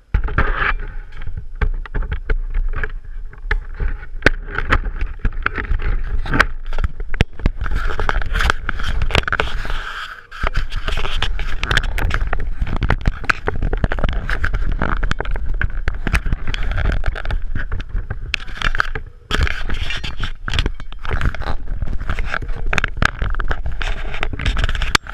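Radio-controlled toy car's electric motor and gears running with a steady whine, mixed with loud scraping and clicking. It cuts out briefly twice.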